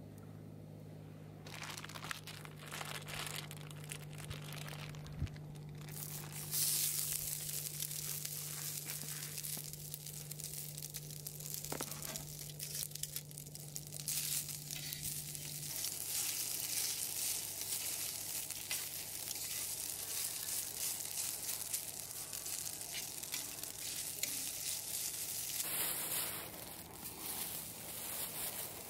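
Plastic packaging crinkling as it is opened, then yakisoba noodles sizzling as they fry in a hot frying pan.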